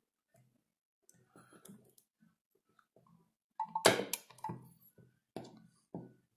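Battery spot welder firing a weld pulse through copper electrodes onto a 0.2 mm strip on a battery cell: a single sharp crack about four seconds in, followed by a few smaller clicks as the electrodes are handled.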